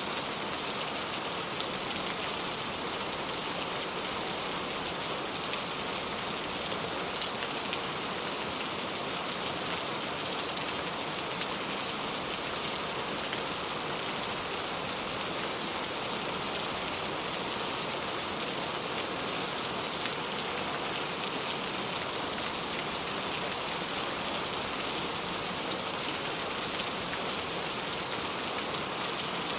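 Steady rain falling and pattering on surfaces, with scattered individual drops ticking now and then.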